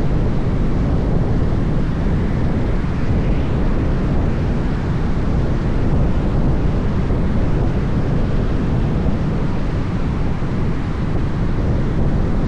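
Steady, loud rumbling outdoor noise, heaviest in the low end, with no breaks and no distinct events.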